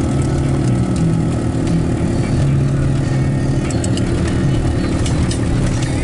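Steady low engine drone of a vehicle running, with a low hum that steps up and down in pitch every second or so.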